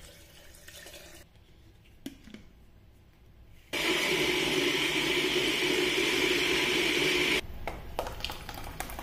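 Countertop jug blender puréeing cooked vegetable soup: it starts abruptly about four seconds in, runs steadily for about three and a half seconds, and cuts off. Near the end, the thick blended soup pours from the glass jug into a steel pot.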